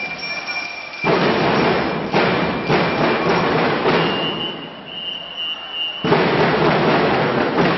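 Drum and lyre marching band playing, with the drums striking together in loud accents about one, two and six seconds in and a quieter passage between.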